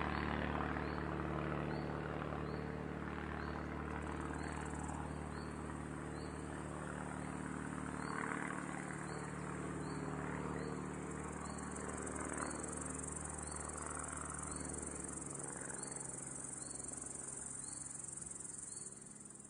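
Crickets chirping in a steady rhythm, with the low steady drone of a small propeller plane under them that stops about three quarters of the way through, leaving only the insects.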